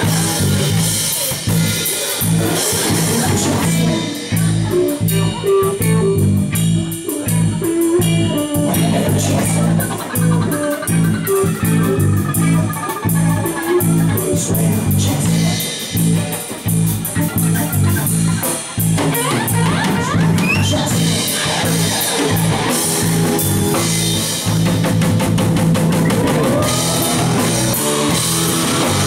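Live rock band playing an instrumental passage of an original song: a drum kit keeping a steady beat under electric guitars and bass, with no singing.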